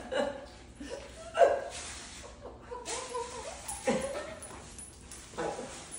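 A pomsky and a papillon at play, giving about five short dog vocal sounds with a wavering pitch, the loudest about a second and a half in.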